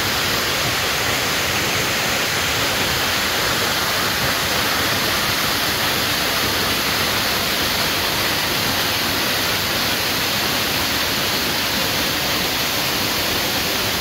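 A waterfall rushing: a loud, steady, unbroken noise of falling water.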